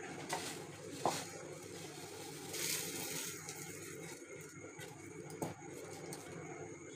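Quiet room tone with faint handling noises: a soft knock about a second in, a brief rustle around the middle, and another soft knock near the end.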